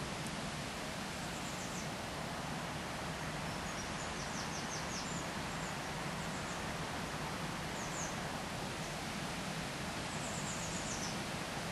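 Steady rushing of river water, with faint high-pitched bird calls: about five short runs of quick, thin notes scattered through.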